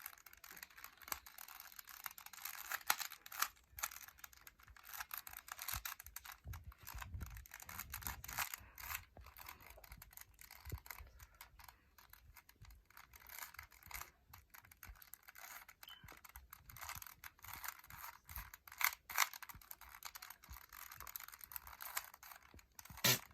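Rubik's Cube being twisted by hand: a long run of quick, irregular plastic clicks and scrapes as its layers turn.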